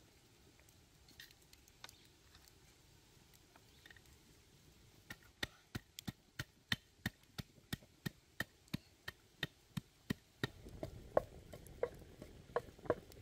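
A knife chopping on a wooden board in quick, even strokes, about three a second, starting about five seconds in. A low rustle joins the strokes near the end.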